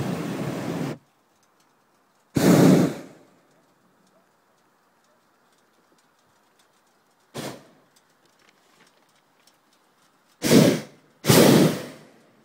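Hot-air balloon's propane burner fired in five short blasts of a second or less, each cutting in and out sharply; the third is very brief and the last two come close together.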